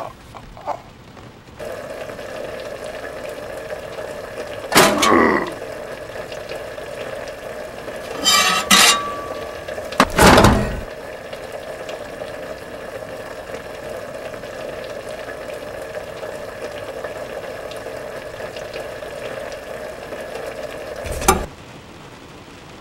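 A steady kitchen hiss starts about two seconds in and cuts off suddenly near the end. Over it come several loud clatters of pots, dishes and utensils, about five, eight and ten seconds in.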